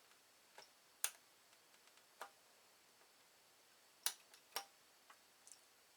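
Faint, irregular sharp clicks, about eight in six seconds, of metal tweezers prodding the pins of a desoldered IC socket to check whether they have broken free of the circuit board.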